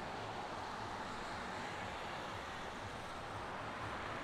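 Steady city traffic: a continuous hiss of car tyres on wet asphalt.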